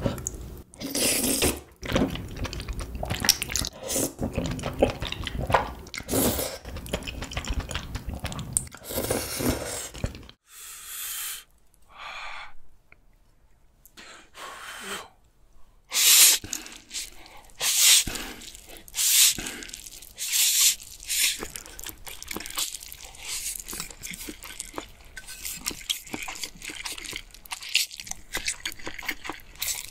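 Close-miked mukbang eating sounds: noodles being slurped and chewed wetly. The chewing runs thick for the first ten seconds, then after a short lull comes a string of loud slurps a second or two apart.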